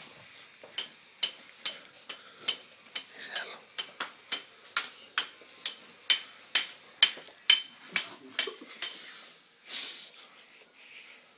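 A metal spoon tapping on a metal wok in a steady rhythm, about two bright clinks a second, each ringing briefly; the tapping stops about nine seconds in, followed by a soft hiss.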